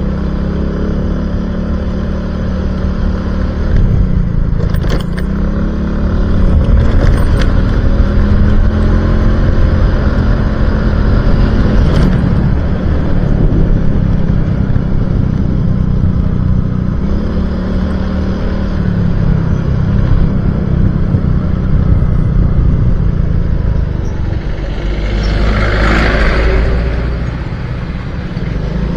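Motorcycle engine running on the road, its pitch rising and falling with throttle and gear changes, over a steady low wind rumble. There is a brief louder rushing swell near the end.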